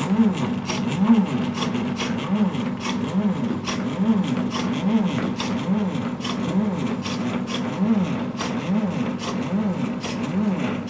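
Painting machine's motors whining up and down in pitch about once a second as the mechanism moves back and forth, with sharp clicks a few times a second.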